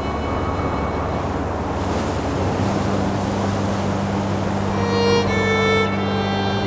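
Background music with bowed strings playing long held notes: a low note comes in partway through and higher notes join near the end.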